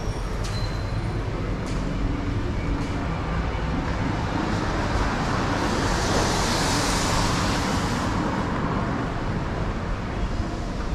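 Street traffic noise with a steady hum throughout. About six seconds in, a vehicle passes close by: a rushing hiss swells and then fades over a couple of seconds.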